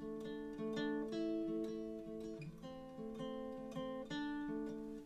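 Guitar playing a short phrase of plucked chords and single notes, a few a second, each left ringing. It is a quick iPhone recording of a first song idea, played in loosely with small imprecisions.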